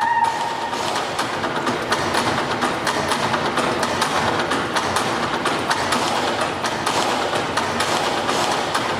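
Live stage music for a folk dance, driven by fast, dense percussion with many quick strikes; a held note fades out just under a second in.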